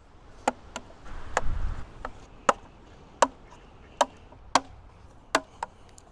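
Sharp clicks and knocks from the hard plastic body and coiled cable of an EV charger being handled, about ten irregularly spaced, with a brief low rumble about a second in.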